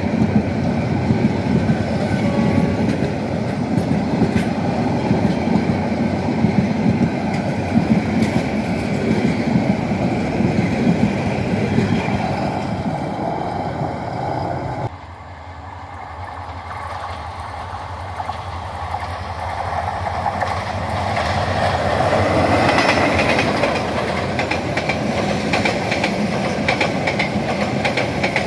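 Bangladesh Railway intercity passenger coaches rolling past close by on metre-gauge track, a dense rumble with wheels clattering over the rail joints. About halfway through the sound drops suddenly, then swells again into a rattling clatter as the coaches pass close once more.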